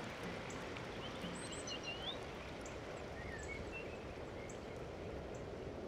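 Forest stream ambience: the steady rush of a small mountain stream, with a few short bird chirps about a second and a half in and again around three seconds.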